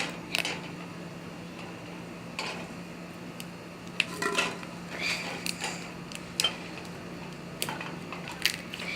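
Glossy slime being squeezed and stretched by hand for ASMR, giving irregular sharp clicks and pops, over a steady low hum.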